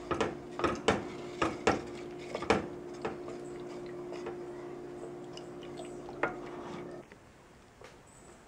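Wooden spatula knocking and scraping against a stainless steel pot while stirring a thickening moong dal and jaggery batter, with a quick run of sharp knocks in the first three seconds and one more later on. A steady low hum runs underneath and stops about seven seconds in.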